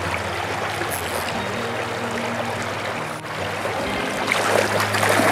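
River current running over a shallow riffle, a steady rushing wash of water, with some brighter splashing about four seconds in. Quiet background music of held, slowly changing chords sits underneath.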